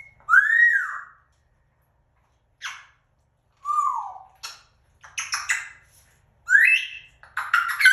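African grey parrot whistling and squawking: an arched whistle, a short sharp call, a falling whistle, then runs of short harsh calls.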